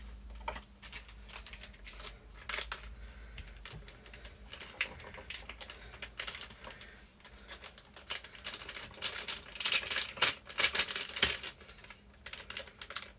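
Kitchen scissors snipping over a frying pan: a run of short, crisp clicks, scattered at first and then coming in quick clusters in the second half.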